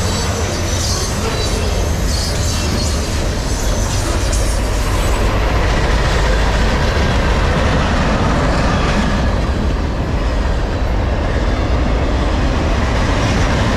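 CSX freight cars rolling past close by: a steady, loud rumble of steel wheels on the rails. High wheel screeching runs through the first few seconds and then eases.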